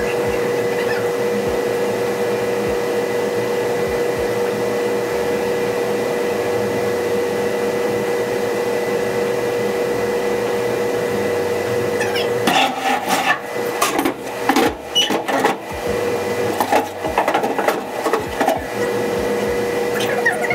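Steady machine hum made of several fixed tones. A little past halfway it breaks up into irregular knocks and scraping as a plank is handled and set into the trunk opening.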